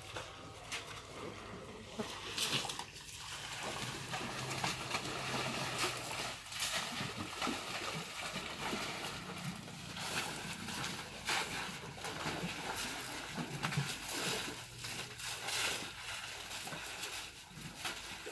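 African elephants splashing and sloshing in a shallow muddy waterhole: repeated splashes of water and mud, one after another.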